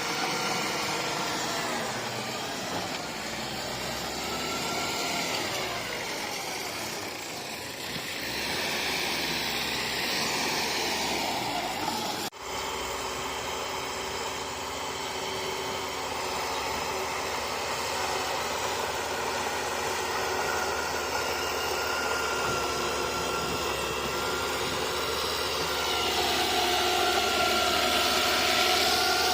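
Bulldozer's diesel engine running with its pitch rising and falling as it works. A brief break about twelve seconds in, and the engine grows louder near the end.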